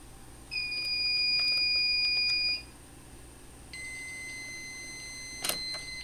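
Fire-Lite MS-9600UDLS fire alarm panel's piezo sounder beeping as the system resets: one steady high beep of about two seconds, then after a short gap a quieter, lower steady tone lasting about two seconds. A sharp click sounds near the end.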